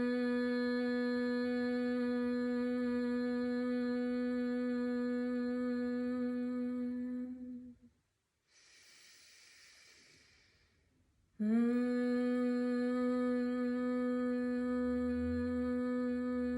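A woman humming the bhramari, or humming bee breath: one long, steady, buzzing note held on the exhale. It breaks off about halfway through, there is a soft breath in, and the hum starts again at the same pitch.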